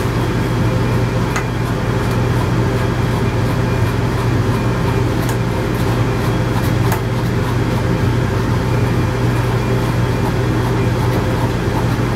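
Steady low mechanical hum of running machinery, a constant low drone that does not change. A few faint clicks of a slicker brush being worked through the dog's face fur.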